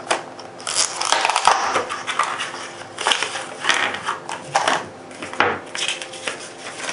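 Stiff clear plastic blister packaging crinkling and crackling irregularly as it is pulled apart by hand and a rubber pistol grip is taken out, with paper rustling near the end.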